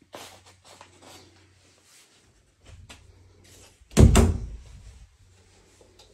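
A six-panel interior door is pushed open by hand, with a loud double thump about four seconds in. Light knocks and rustles of handling come before it.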